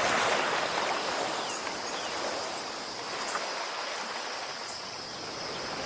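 Steady rush of ocean surf washing in, easing slightly midway, with a few faint high chirps over it.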